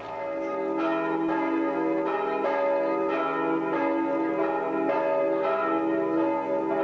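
Church bells ringing a peal: many overlapping bell tones, with a new bell struck about every half second. It starts abruptly.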